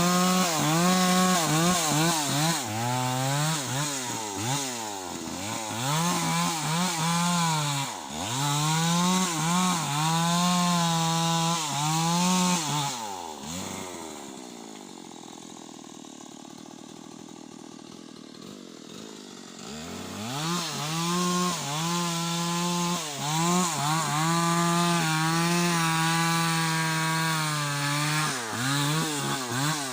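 Stihl two-stroke chainsaw revving high while cutting teak, its pitch repeatedly dipping under load and recovering. About 13 seconds in it drops to a quiet idle for several seconds, then revs up and cuts again before easing off near the end.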